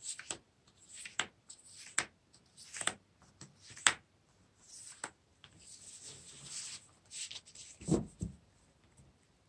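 Tarot cards being drawn from a fanned-out deck and laid down on a cloth-covered table: sharp card snaps and taps about once a second, soft sliding rustles, and a dull thump near the end.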